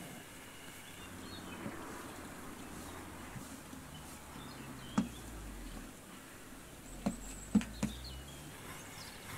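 Knife cutting through dough and knocking on a metal tray: one sharp tap about five seconds in and three more close together near the end. Faint birdsong chirps in the background.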